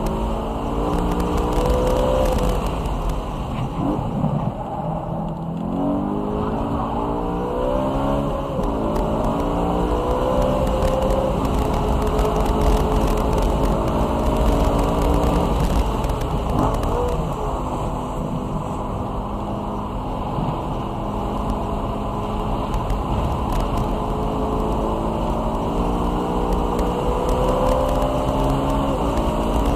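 BMW E92 M3's V8 engine running hard on track, its pitch climbing through the rev range and dropping back with each shift. The pitch falls and climbs again about four to six seconds in and once more around seventeen seconds in.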